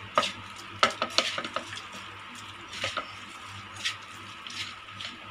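Sliced onions being mixed by hand with salt and spices in a metal bowl: a soft scraping rub, with irregular sharp clinks as the hand and onions knock against the bowl's side. A faint steady hum sits underneath.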